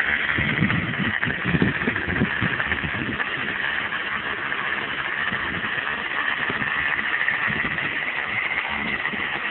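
A small weed eater engine powering a homemade boat runs steadily at high speed, giving a constant high whine that drifts slightly in pitch. Irregular low thumps sound in the first few seconds.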